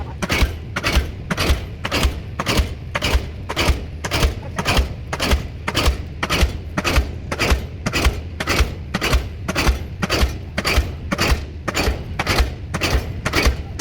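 Diesel pile hammer driving a pile, a steady, even series of heavy metallic blows a little over two a second. The throttle is kept low so the pile does not slip.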